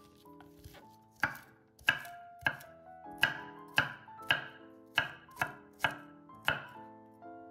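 Knife chopping food on a cutting board: about ten evenly spaced cuts, roughly one every half second, starting about a second in, over soft piano music.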